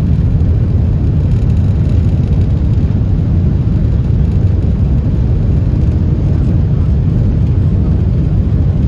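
Cabin noise inside a JR Central L0 series superconducting maglev car cruising at 500 km/h: a steady, loud low rumble that holds unchanged throughout.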